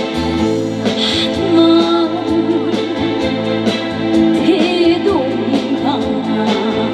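Instrumental intro of a trot song played loud over a concert sound system, with a steady beat under a wavering lead melody.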